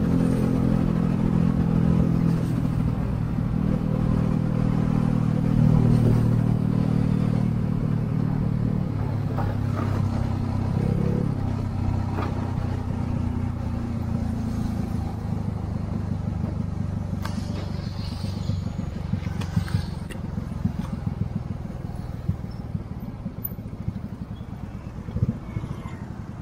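Small motorcycle engine running steadily under way, then easing off and growing quieter through the second half as the bike slows at a junction, with scattered light ticks and clatter.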